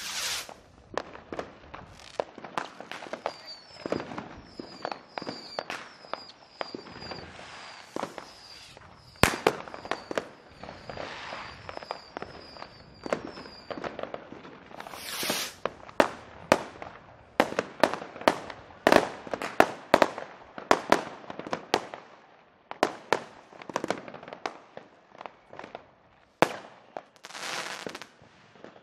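Fireworks going off: many irregular sharp bangs and pops, some in quick clusters, with a few short hissing bursts. A short high note repeats through the first half.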